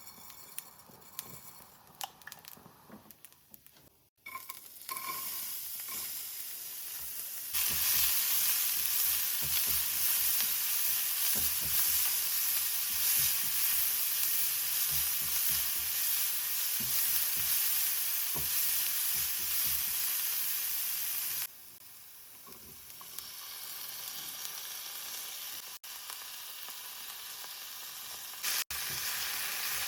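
Food sizzling in hot ghee in a pan, with stirring. The sizzle sets in a few seconds in, grows louder, drops suddenly about three-quarters of the way through, then rises again near the end.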